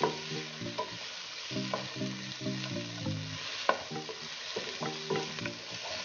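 Sliced onions, tomato, green chillies and curry leaves sizzling in hot oil in a nonstick pan while a spatula stirs them, scraping against the pan every second or so. The tomato has just gone in and is frying down into the onion masala.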